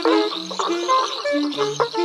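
Music played as a quick run of short pitched notes, over the continuous chirring of insects.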